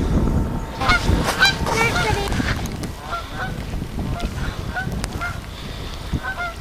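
Waterfowl on the lake calling: a dense flurry of short, overlapping calls about a second in, then scattered single calls.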